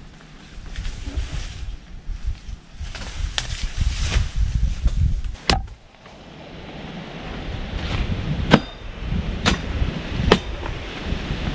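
Cutlass (machete) chopping into a tree limb: four sharp strikes, one about halfway through and three about a second apart near the end, over wind rumbling on the microphone.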